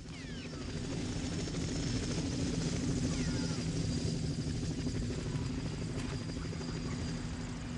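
A steady low rumbling drone that fades in over the first second or so, with a few faint high chirps over it.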